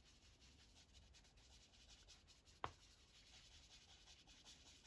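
Faint scratchy rubbing of a sponge applicator over paper, laying pan pastel onto a page's background border. One sharp tap comes about two and a half seconds in.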